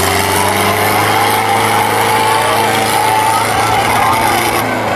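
Tractor diesel engines running hard and steady under heavy load, with a crowd shouting.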